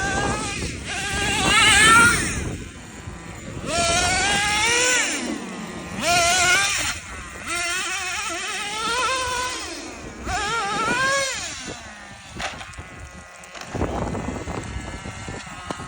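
Traxxas T-Maxx nitro RC engine revved in several short blips, its pitch rising and falling with each one, settling back to a lower idle between them.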